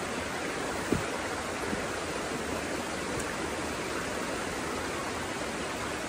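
Steady rush of shallow creek water flowing fast over a flat rock ledge at the lip of a waterfall. A single brief low thump about a second in.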